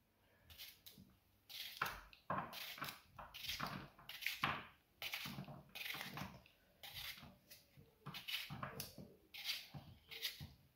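Raw potato, skin on, being cut in the hand with a knife, chunks dropping into a pot: a quick, irregular series of short crisp cuts and small knocks.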